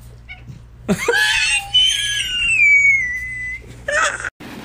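Orange tabby cat giving one long, loud yowl that falls slowly in pitch over about two and a half seconds, answering its owner's call, followed by a short second cry near the end.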